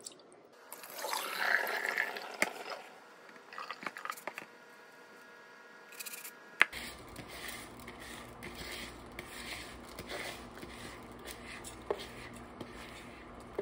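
Water poured off washed rice from a plastic bowl in a sink, then wet rice being scraped by hand from the bowl into a pot of hot water on the stove, with a steady low hum underneath.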